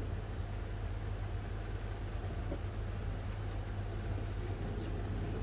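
Room tone: a steady low hum with faint hiss.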